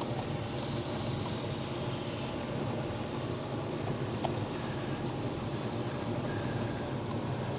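Steady low mechanical hum and rumble of running machinery, with a faint click about four seconds in.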